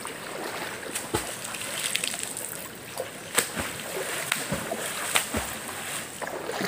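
River water splashing and sloshing, with irregular sharp splats and knocks.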